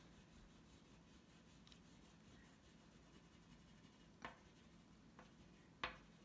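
Near silence: faint scratchy rubbing of a white oil pastel stroked over paper, with two brief ticks late on.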